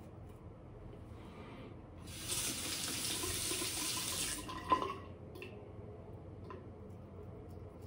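Bathroom tap running for about two seconds while shaving, the water falling into the sink, then a single sharp clink just after it stops.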